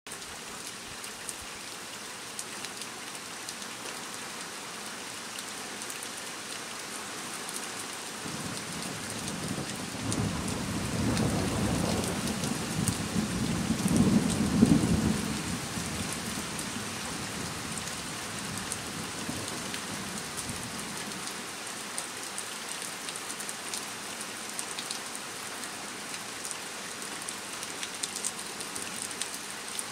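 Steady rain falling on a slate roof, pattering throughout. A long roll of thunder builds about a quarter of the way in, is loudest near the middle and rumbles away well before the end.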